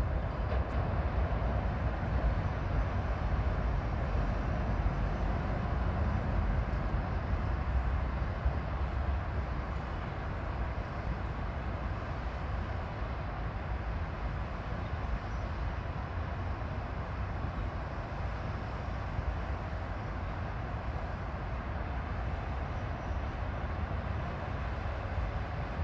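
Steady low rumble of distant traffic, a little louder in the first ten seconds or so.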